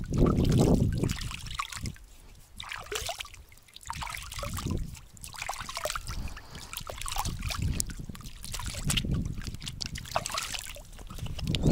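Water splashing and trickling close by in uneven bursts, louder at the start and again near the end.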